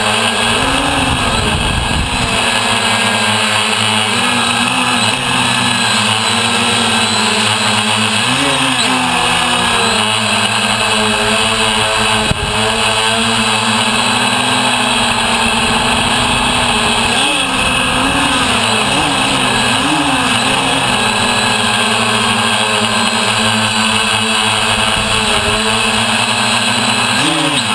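A DJI F550 Flame Wheel hexacopter's six electric motors and propellers whirring steadily, heard close up from a camera on the frame. Their pitch wavers up and down now and then as the motor speeds change in flight.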